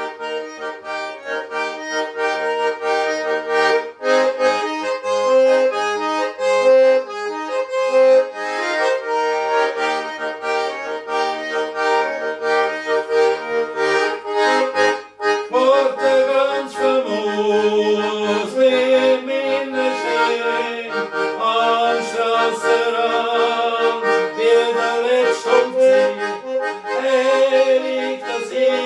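Schwyzerörgeli, the Swiss diatonic button accordion, playing a lively folk tune with melody over a rhythmic accompaniment. It breaks off briefly about halfway, then goes on into a new section with wavering, ornamented notes.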